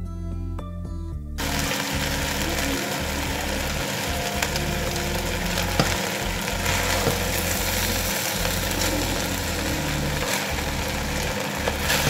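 Background music for about the first second and a half, then zarda rice sizzling and crackling in the pot as the last of the sugar-released water cooks off while it is stirred with a silicone spatula. This sound is the sign that the water has dried out and the rice is done.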